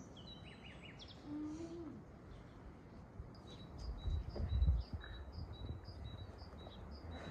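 Small bird chirping: short high notes, a few falling ones at first, then repeating about twice a second through the second half. A low rumble comes in about halfway through.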